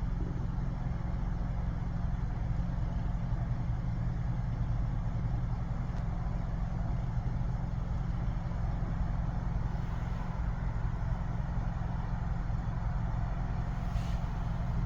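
A steady low mechanical hum over constant hiss, unchanging throughout.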